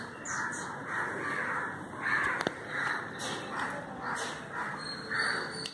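Crows cawing over and over, harsh calls roughly twice a second, with a dog crunching biscuits underneath.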